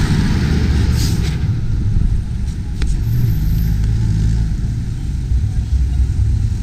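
Road traffic: a steady low rumble of vehicle engines.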